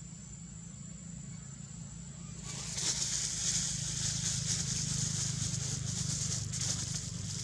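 A steady high insect buzz, with a crackling rustle like dry leaves being crushed starting about two and a half seconds in and easing off near the end.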